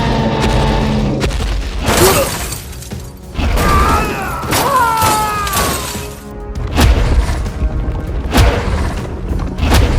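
Background music overlaid with several heavy boom and crash sound effects, about four sharp hits spread through, with a few gliding pitched sounds in the middle.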